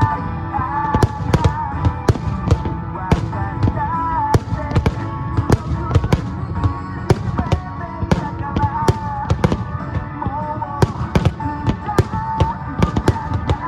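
Aerial fireworks bursting in quick, irregular succession, several bangs a second, over music with a wavering sung or played melody.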